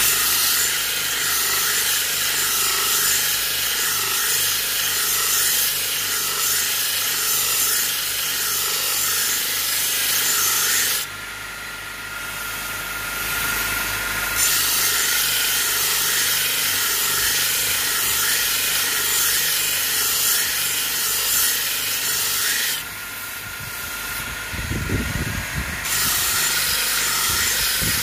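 Electric belt grinder running with a steel kitchen knife blade, forged from bearing steel, held flat against the abrasive belt: a steady grinding hiss over the motor's hum. Twice the grinding hiss drops away for a few seconds, a little before halfway and again near the end, while the motor keeps running.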